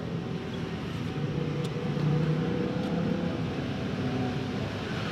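A motor vehicle's engine running nearby: a steady hum with pitched lines that swells about two seconds in and then eases. A few faint clicks come from training wire being handled around a bonsai branch.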